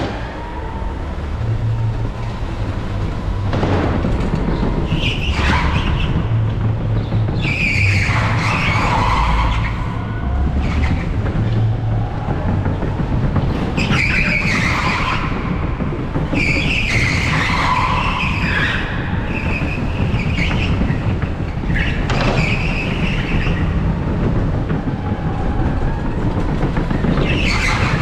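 Electric go-kart driven hard, heard from onboard: a continuous rumble of the kart running over tarmac, with the tyres squealing again and again through the corners.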